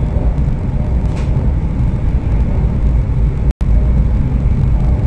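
High-speed train running at about 300 km/h, a loud, steady low rumble of running noise heard from on board. The sound cuts out completely for a split second a little past halfway.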